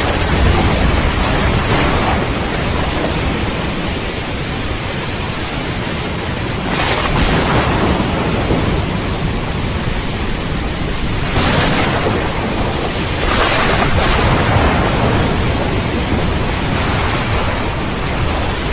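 Steady heavy rain with rolling thunder: a deep rumble at the start and several more swells of thunder through the middle.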